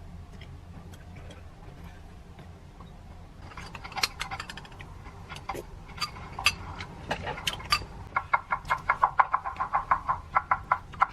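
Eating utensils clicking and clinking against a bowl or dish: scattered taps a few seconds in, then a quick run of taps at about five a second near the end, over a low steady hum.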